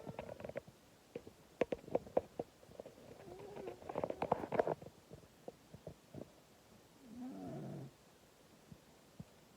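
Sleeping tabby cat snoring: rattling, clicky snore breaths about two and four seconds in, and a snore that falls in pitch near the end.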